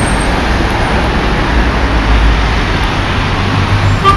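Street traffic: a white panel van driving past close by, its engine and tyres over steady road noise.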